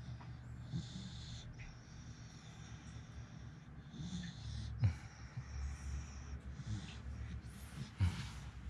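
Beagle breathing through its nose while its cheek and ear are rubbed, with two short louder puffs, one about five seconds in and one near the end.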